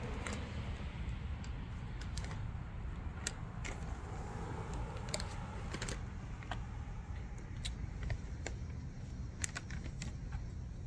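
Low rumble of wind buffeting the microphone outdoors, with scattered light clicks and ticks.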